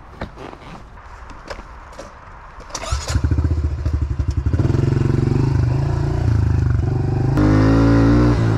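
Honda CRF110F pit bike's small single-cylinder four-stroke engine starting about three seconds in, after a few knocks and clicks. It runs unevenly for a moment, then settles into a steady run. Near the end it rises in pitch as the bike pulls away.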